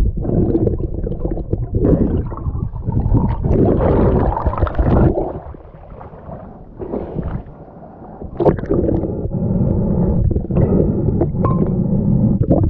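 Muffled water rushing and gurgling against an action camera as a snorkeller moves through the water and breaks the surface with a bottle. It drops quieter for a few seconds partway through, ending in a sharp splash about eight and a half seconds in, then the loud underwater rush returns.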